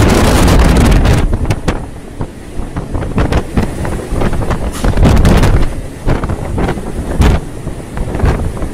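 Storm wind buffeting the microphone in loud, uneven gusts with crackling knocks, over the rush of a rough sea. It is loudest at the start, eases after about a second and surges again around the middle.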